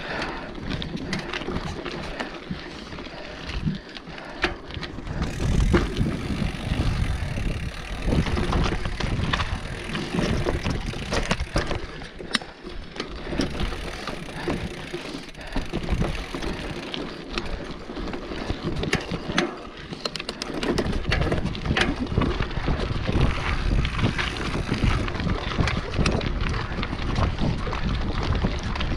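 Mountain bike riding fast down a rocky dirt trail: tyres on loose dirt and stones, with many sharp knocks and clatter from the bike over rocks and roots. Wind buffets the camera microphone, most heavily in the second half.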